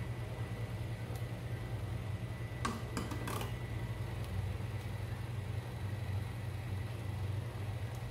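A steady low hum runs throughout, with a short cluster of sharp clicks or knocks about three seconds in.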